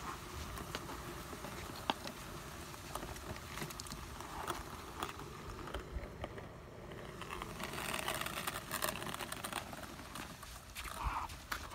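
A homemade ice resurfacer, a loaded trolley on small caster wheels, rolling over rough pond ice, with scattered clicks and knocks as it goes.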